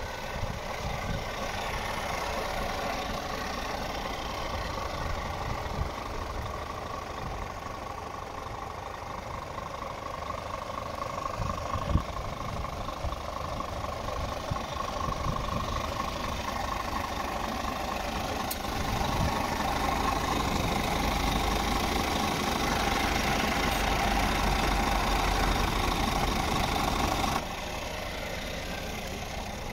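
Scania R440 truck's diesel engine idling steadily. It gets louder past the middle and drops off suddenly near the end.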